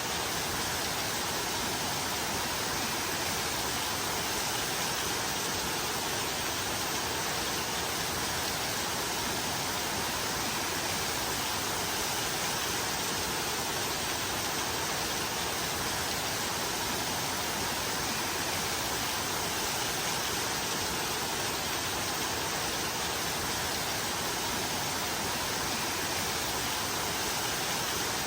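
Steady rain: an even, unbroken hiss that does not change in level.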